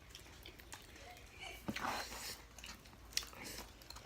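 A person chewing and biting food, with scattered small clicks, a louder noisy stretch just before two seconds in and a sharp click a little after three seconds.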